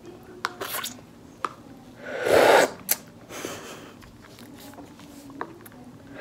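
Slurping on a wide boba straw: one loud breathy slurp a little over two seconds in and a softer one about a second later, with small mouth clicks scattered around them.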